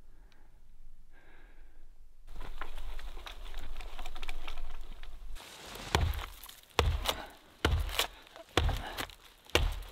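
Hand axe chopping into the trunk of a small standing tree: five sharp strikes about a second apart in the second half.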